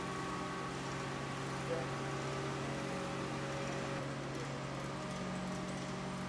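Steady machinery hum made of several held low tones over an even background noise, with one short knock a little under two seconds in.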